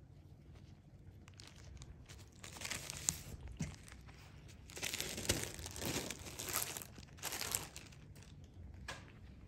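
Thin clear plastic treat bag crinkling in several bursts as a cat noses and paws at it. The first couple of seconds are quiet.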